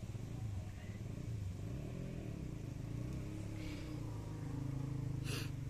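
Faint low hum of a running engine, its pitch drifting up and down, with a short click near the end.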